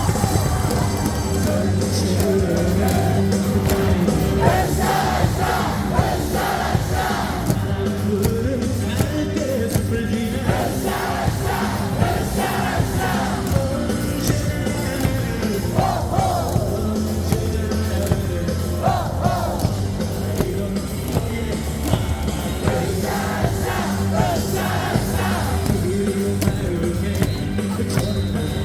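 Baseball stadium crowd singing and chanting a cheer song in unison over loud amplified music with a steady drum beat.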